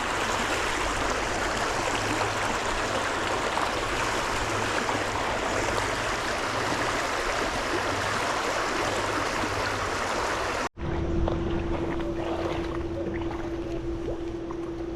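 Rushing stream water, a steady hiss. About eleven seconds in it cuts off abruptly and gives way to a quieter hiss with a steady low hum.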